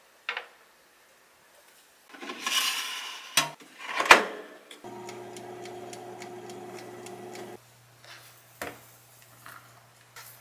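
Wire air-fryer basket handled and slid into an air fryer, with a scraping rustle, a knock and a sharp click. Then the air fryer's fan runs with a steady hum for about three seconds and cuts off, followed by a few light clicks.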